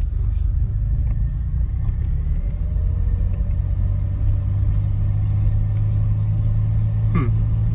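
A 1981 DeLorean DMC-12's rear-mounted PRV V6 running while the car is driven, heard from inside the cabin as a steady low rumble of engine and road noise.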